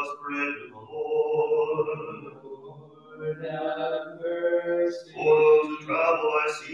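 Byzantine-rite liturgical chant: a man's voice chanting phrases mostly on one held reciting note.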